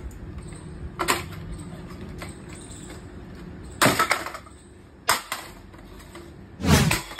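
Hammer blows smashing a child's cat coin bank, its plastic mechanism inside a cardboard box, on a stone tile floor: four separate strikes a second or more apart.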